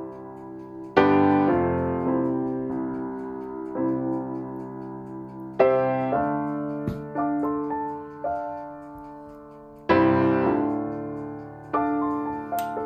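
Slow solo piano music. Chords are struck every few seconds and left to ring and fade, with a few lighter notes in between.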